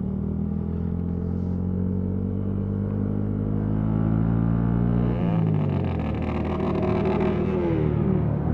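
Motorcycle engine running while riding, its note sliding slowly down. About five seconds in, a second, higher engine note rises and then falls away near the end.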